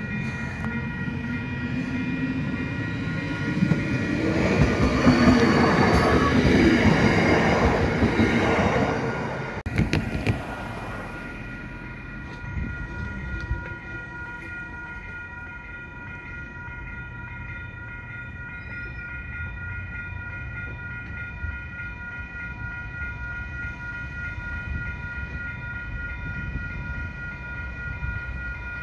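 An electric multiple-unit commuter train passing, its noise swelling to the loudest point about halfway through the first ten seconds and then falling away. Level crossing warning bells ring steadily and rhythmically, taking over alone from about ten seconds in while the crossing's lights flash and the barrier is down.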